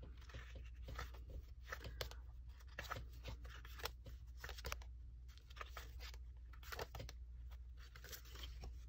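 Faint rustling and light scratchy clicks of paper sheets being handled and shuffled, coming irregularly throughout.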